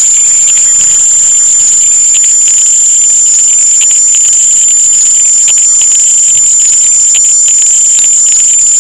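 Oil sizzling and crackling steadily in a frying pan as round balls of food fry, with many small pops, over a constant high-pitched whine.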